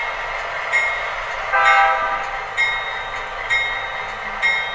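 Locomotive bell from an MTH Proto-Sound decoder in an HO-scale diesel model, ringing in steady strokes about once a second over the decoder's steady diesel running sound, with a short horn-like tone about one and a half seconds in. The bell marks the start of the first step of the F4 passenger/freight announcement sequence.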